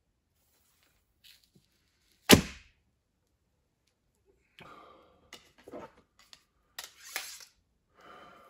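Traditional bow shot at close range: one loud, sharp thunk of the bowstring release and arrow striking home about two seconds in, with a brief ring after. Then rustling and light clacks of arrows being handled and drawn from a hip quiver.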